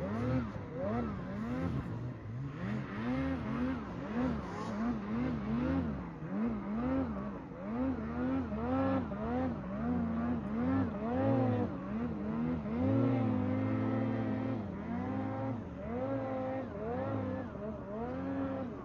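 Ski-Doo Turbo R snowmobile's turbocharged two-stroke engine working up a steep snow slope, its pitch rising and falling over and over as the throttle is worked, then held steady for a couple of seconds about two-thirds of the way through.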